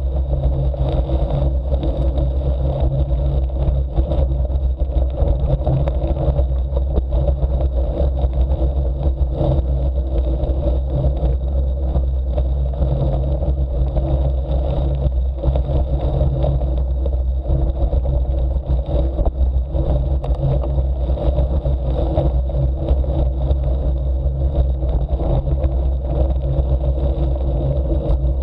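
Engine of a knobby-tyred off-road vehicle running steadily at low speed, with a constant low hum that holds its pitch throughout.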